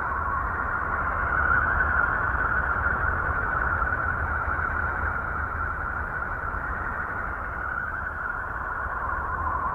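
Sonified spacecraft radio or plasma-wave recording: a steady hissing whine in a narrow band, over a low rumble, swelling a little about a second and a half in.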